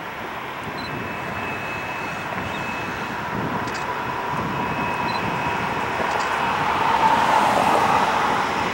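Amtrak passenger train led by a GE P40DC diesel locomotive approaching, its engine and wheel noise growing steadily louder, with a faint steady whine underneath.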